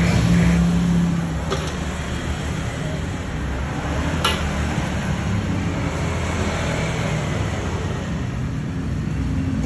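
Steady road-traffic noise with a motor vehicle's engine running, and two short clicks, about one and a half and about four seconds in.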